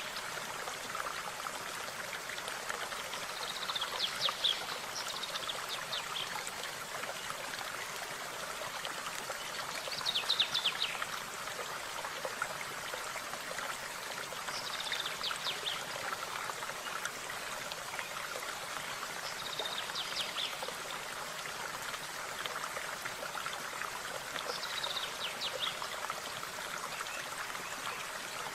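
A stream running steadily over stones, with a small bird calling in short clusters of quick high chirps about every five seconds.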